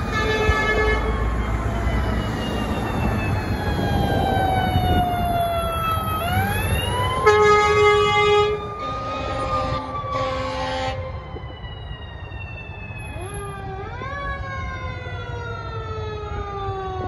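Emergency vehicle sirens wailing in slow falling and rising sweeps as a fire engine, ambulance and police cars arrive, over a low engine rumble. A horn sounds at the start, then one long blast about seven seconds in and two shorter blasts just after. From about fourteen seconds in, a second siren adds quick repeated rising sweeps.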